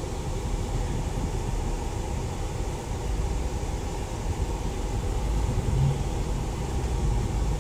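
Steady low rumble of cabin noise inside a Chevrolet Captiva moving slowly in traffic, with the engine and the air-conditioning blower running.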